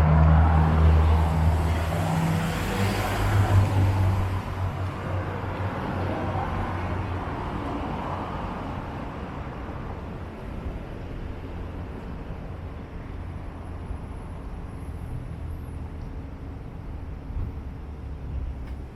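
A motor vehicle passing close by on a city street: a low engine hum and tyre noise that are loudest in the first few seconds, then fade away into steady, distant road traffic.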